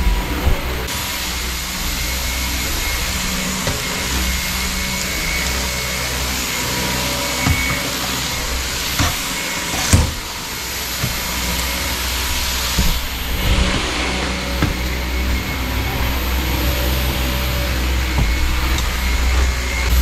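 Samsung Jet 70 cordless stick vacuum running steadily as its floor brush is pushed across the floor, with a few sharp knocks, the loudest about ten seconds in.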